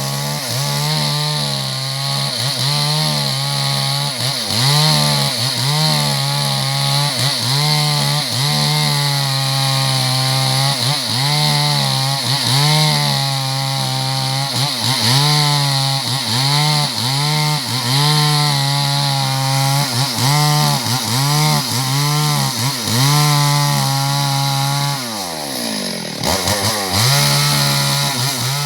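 Two-stroke chainsaw running hard through wood, its engine pitch dipping and recovering about once a second as the chain bites. Near the end the revs fall away sharply, then climb back up.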